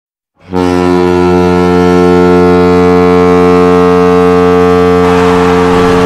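Ice hockey goal horn sounding one long, deep, steady blast that starts about half a second in. About five seconds in, its upper tones fade as a noisy rush joins it.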